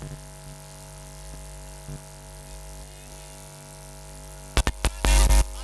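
Steady electrical hum from a public-address system with a few faint clicks. Near the end come several sharp clicks and a loud, distorted burst through the loudspeakers.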